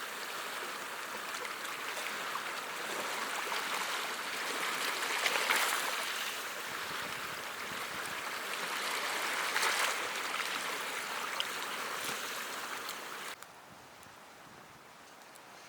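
Sea waves washing onto the shore: a steady rush that swells every few seconds. It cuts off suddenly near the end, leaving only a faint hiss.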